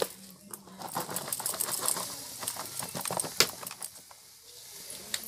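Chopped vegetables and pumpkin flowers tipped into a hot kadhai of greens, with rapid crackling and clicking and one sharp click a little past three seconds in.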